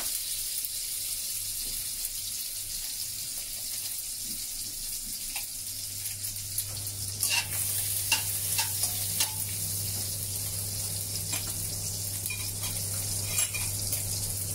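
Soaked dried shrimp sizzling in hot oil in a wok, with a spatula scraping and tapping the pan in a run of quick strokes about seven to nine seconds in and a couple more near the end. A low steady hum comes in about halfway through.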